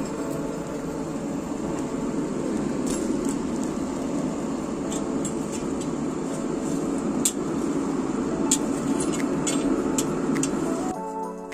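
Charcoal forge fire burning hard under forced air from an electric blower: a steady rushing roar, with sharp crackles and pops from the coals scattered through the second half.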